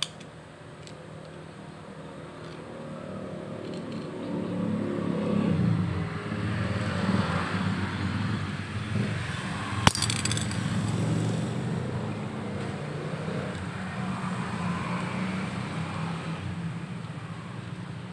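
An engine running steadily, swelling louder a few seconds in and holding on with a low hum. A single sharp click near the middle.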